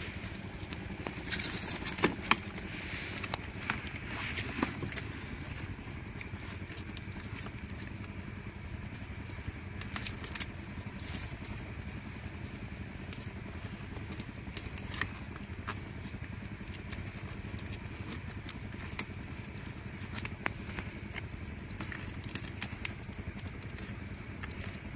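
Scattered clicks and scrapes of a live mud crab being held down and its claws tied with string on a wooden deck, its shell and legs scratching on the boards, over a steady low rumble.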